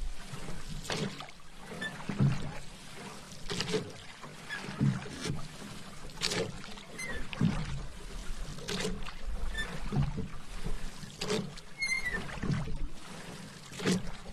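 Paddle strokes in water: the blade dips and pulls through with a short splash, in an even rhythm of about one stroke every second and a quarter.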